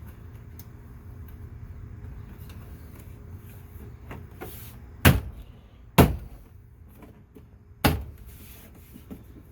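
Three sharp thumps in the second half, two about a second apart and a third two seconds later: a rear door panel being knocked against the door to snap its retaining clips home.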